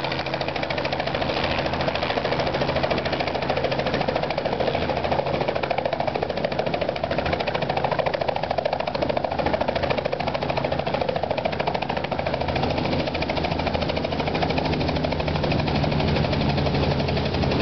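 Small two-bladed helicopter hovering low and settling onto a landing pad, its rotor blades chopping steadily and its engine running throughout.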